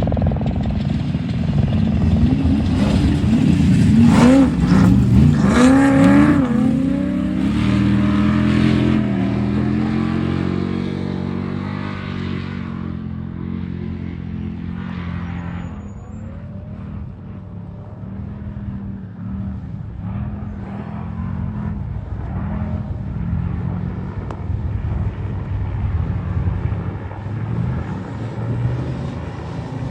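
Off-road trophy truck engine revving hard as it races past, loudest about four to six seconds in. The pitch then drops and the engine fades as it pulls away, and engine noise carries on at a lower level, swelling a little again near the end.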